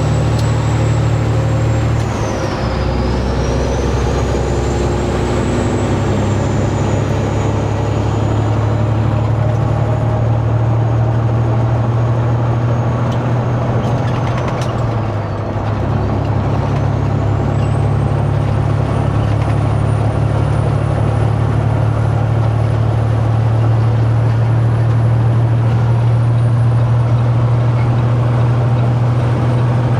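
Peterbilt 389 semi-truck's diesel engine running steadily under way, with a faint high whistle above it. The engine note dips and changes twice, about two seconds in and about halfway through, and the whistle sinks and climbs back each time.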